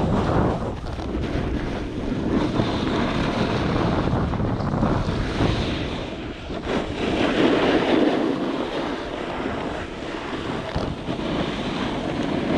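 Wind rushing over the microphone during a snowboard descent, mixed with the snowboard's base and edges scraping over packed snow. The noise swells and ebbs with the turns.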